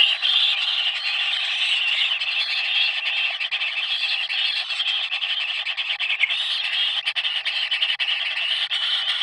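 Dense, steady, shrill chorus of calling animals that never breaks.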